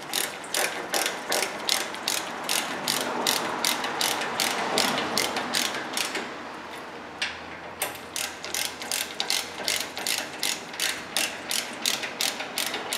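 Hand ratchet wrench clicking as it tightens the brake caliper mounting bracket bolts, about three clicks a second, with a short pause about halfway through.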